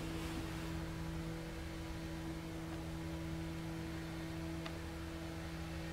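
Steady electrical hum with a couple of constant tones over faint hiss: room tone. One faint click a little over four and a half seconds in.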